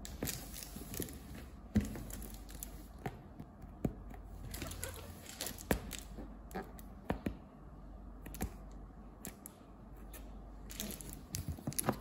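Hands brushing, tapping and shifting a cardboard box: scattered light taps and scrapes, getting busier near the end as the box is lifted and turned over.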